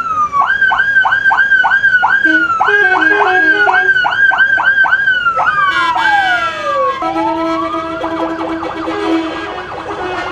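Electronic vehicle sirens on a slowly moving convoy. A yelp sweeps up and falls about two and a half times a second, then turns into one long falling wail about six seconds in. After that a second siren rises and warbles quickly over a steady horn-like tone.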